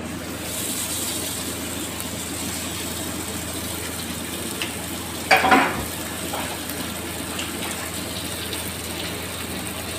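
Masala-coated pomfret sizzling in mustard oil on a hot tawa. The steady hiss starts as the fish is laid down. A brief louder noise breaks in about five seconds in.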